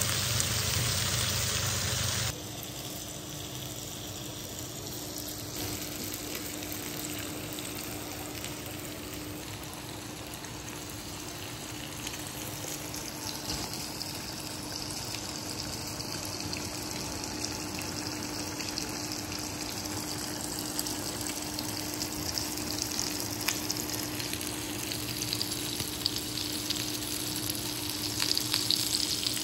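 Pork belly sizzling on an electric grill pan: a steady frying hiss with scattered pops of spitting fat that come more often near the end, over a faint steady hum. The hiss is louder for the first two seconds, then drops.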